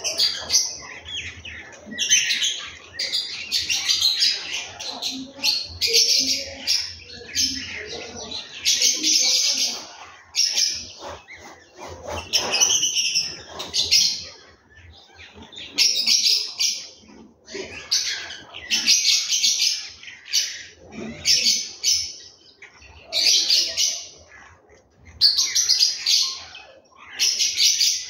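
Small birds chirping rapidly, in loud bursts of a second or two that come again and again with short gaps between them.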